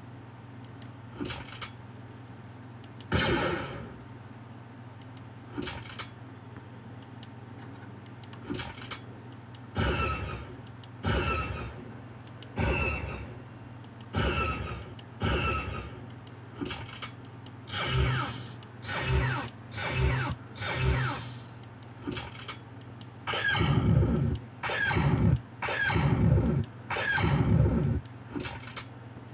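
Star Wars E-11 stormtrooper blaster sound effects played from an MP3 sound module through a small speaker, each press of a pushbutton firing one short zap with a falling pitch. There are about a dozen shots, most a second or so apart, over a steady low hum.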